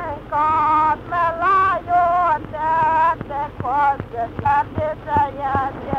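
Solo voice singing a Romanian bridal song (cântec de mireasă) in short, wavering, ornamented phrases, from a 1912 phonograph cylinder field recording, sounding dull and thin, with sharp clicks in the second half.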